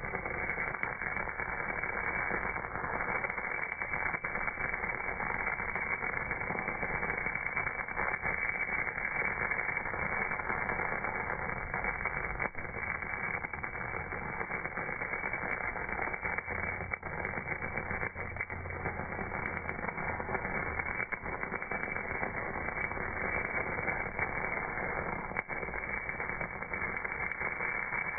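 MAG welding arc on a cast part, a steady, dense crackling hiss with no pauses, dull and muffled with no treble, as welding sound is when played back slowed down.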